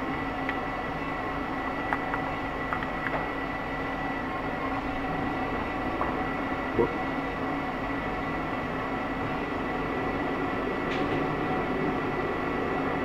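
Motorized range target carrier running steadily along its rail track, bringing the target back to the firing line: a steady mechanical hum with a thin high whine and a few faint clicks.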